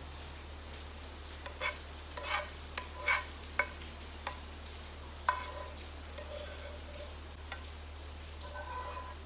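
A metal spoon scraping and clinking against a metal frying pan as rice is scooped out of it: about a dozen short scrapes and taps, some ringing briefly, the sharpest about five seconds in.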